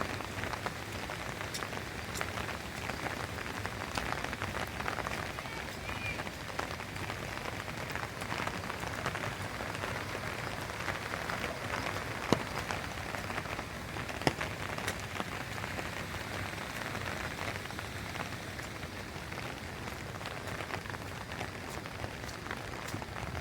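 Steady rain falling, an even hiss with many small drop ticks through it and two sharper drip ticks a little past the middle.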